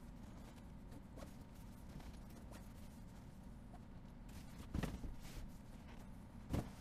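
Faint rustling and rubbing of a PU leatherette upholstery cover being worked over a foam sofa body by gloved hands, with two dull thumps, one nearly five seconds in and one near the end.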